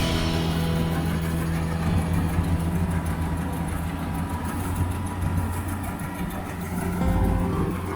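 Kubota combine harvester's diesel engine running steadily, with a brief swell in the low rumble near the end.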